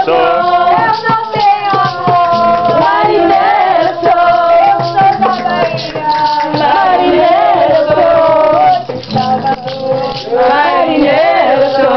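A group of people singing together to an acoustic guitar, with rhythmic percussion shaking along; the singing eases briefly about three-quarters of the way through, then picks up again.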